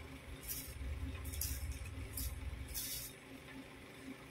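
Clothing fabric rustling as a dress is unfolded and shaken out: several short swishes, about one a second, with a low rumble of handling in the middle.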